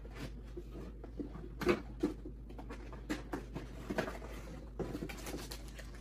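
Scattered light taps, clicks and rustles of computer parts and their packaging being handled, over a low steady hum.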